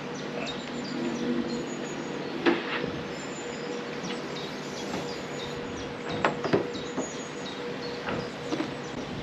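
Small portable electric water pump running with a steady hum, with several sharp knocks and clatters, the loudest about two and a half and six and a half seconds in. Birds chirp throughout.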